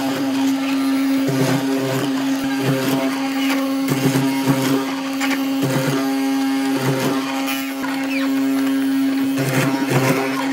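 Benchtop hollow-chisel mortiser running, its motor humming steadily while the square chisel and auger bit are plunged again and again into pine. A deeper note comes and goes every second or two with each plunge, along with sharp cracks of the chisel cutting wood.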